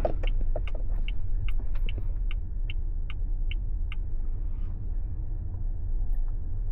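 Low, steady road rumble inside the cabin of an AITO M9 driving in the rain, with a regular high ticking, about two and a half ticks a second, that stops about three and a half seconds in.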